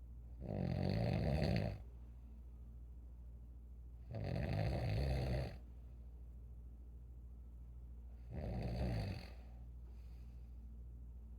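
An elderly person snoring in their sleep: three snores, each about a second long and spaced about four seconds apart, over a steady low hum.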